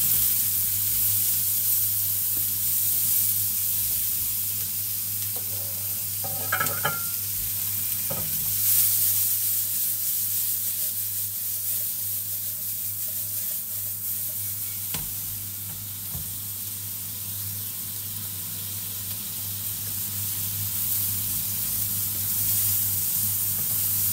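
Sliced bell peppers and onions sizzling in oil in a stainless steel frying pan, stirred with a silicone spatula and tossed in the pan, with a few light scrapes and knocks against the pan.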